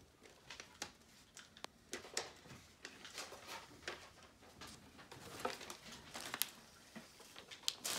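Light rustling of paper and cloth being handled, with scattered small clicks and taps throughout.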